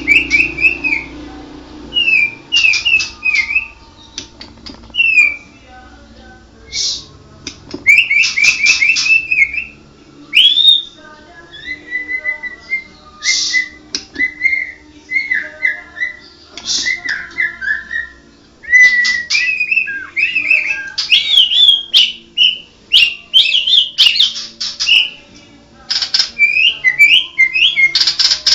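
White-rumped shama (murai batu) singing: loud whistled phrases mixed with harsh clicking, rattling notes, in bursts with short pauses between them.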